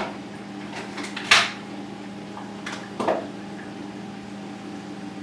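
Steady electrical hum of a reef aquarium's running equipment, such as its pumps and powerheads. Two short, sharp noises break in, one just over a second in and a smaller one about three seconds in.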